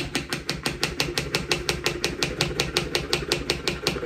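French press plunger pumped rapidly up and down through milk to froth it, a fast, even rhythm of about five strokes a second.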